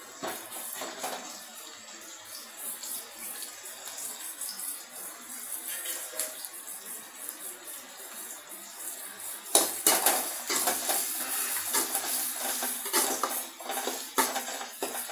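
Sliced onions sizzling in oil in an aluminium kadai, with a metal spatula scraping and clinking against the pan as they are stirred. It gets louder from about halfway through.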